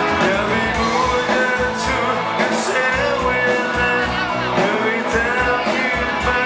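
A male singer singing into a microphone over a live rock band with guitar.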